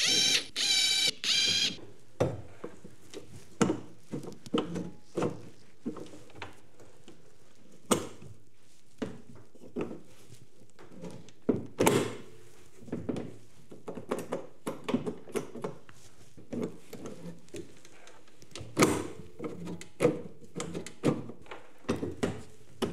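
Cordless drill/driver whining in three short bursts as it drives fasteners into the tailgate. Then irregular knocks, clicks and clunks of the Polaris UTV's tailgate and its latch mechanism, worked by hand to test the repaired opening mechanism.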